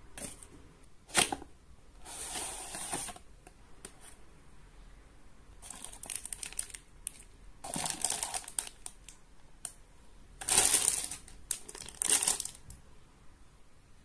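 Plastic packaging bag around a toy buckle crinkling and rustling as it is handled and unpacked, in several irregular bursts, with a sharp click about a second in.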